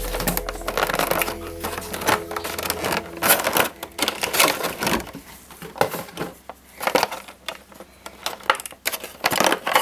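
Irregular clicks, taps and crinkles of plastic packaging and toy model airplanes being handled and unpacked.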